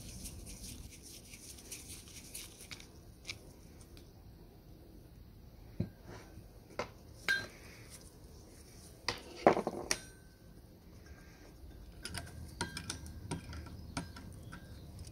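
Small metal juicer parts and hand tools clinking and knocking as a knob and brass fitting are handled and worked with pliers. A louder scraping rattle comes about nine to ten seconds in, and there is brief faint metallic ringing.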